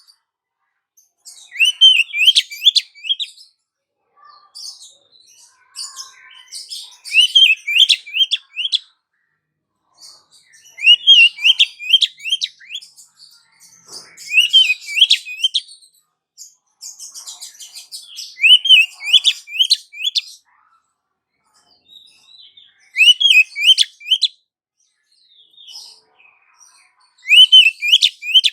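Female oriental magpie-robin calling to a male: a short phrase of four or five quick rising whistled notes, repeated about every four seconds, with softer scratchy chatter between the phrases.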